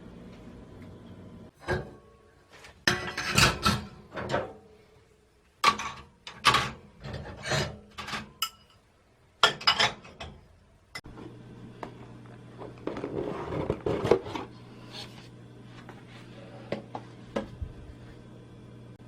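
Kitchen dishes and utensils clinking and clattering, a string of sharp knocks over several seconds. About eleven seconds in, a steady low hum starts and runs on, with a brief rustling stretch and a few light clicks over it.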